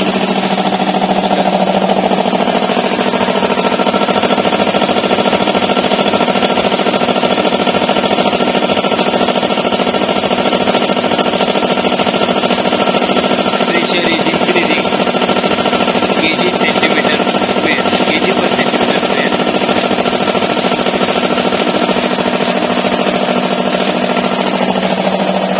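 Two-piston, V-belt-driven reciprocating air compressor with a 2 HP electric motor, running steadily with a rapid, even pumping clatter over a steady hum as it compresses air into its tank.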